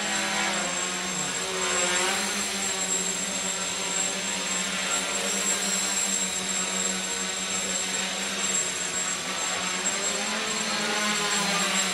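3D-printed quadcopter's electric motors and propellers buzzing as it hovers and drifts, the pitch wavering up and down with throttle changes, most clearly near the start and again near the end.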